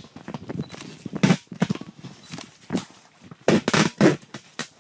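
Knife blade sawing through the PVC tube of an inflatable boat: a few sharp, separate cutting strokes, one about a second in and a quicker cluster near the end.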